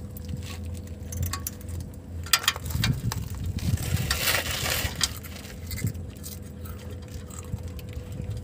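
Handbrake cable end and its retaining clip being worked by hand into a metal bracket under a Mitsubishi L300, giving irregular small metallic clicks and clinks. A faint steady hum runs underneath.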